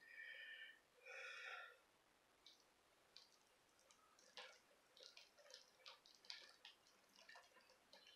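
Resin and paint dripping off the edge of a tilted poured board onto plastic sheeting: faint scattered ticks and pats, sparse at first and more frequent from about four seconds in. It opens with two short high-pitched tones about a second apart.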